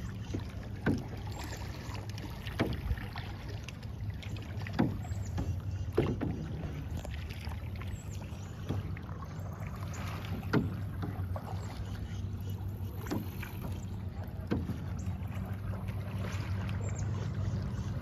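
Kayak paddle strokes in a clear-hulled kayak: the paddle blade dipping into the water with a sharp splash or knock every one to two seconds, over a steady low hum.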